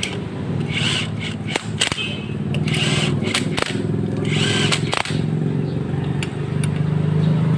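Hand-held electric power driver running on the screws of a Suzuki GD110 motorcycle crankcase, a steady motor hum with a few sharp clicks as the bit works the screws.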